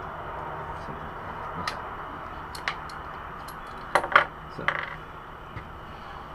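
Metal clinks and taps of hand tools and small exhaust-clamp hardware being handled: a few scattered clicks, then a loud cluster of clinks about four seconds in, over a steady low hum.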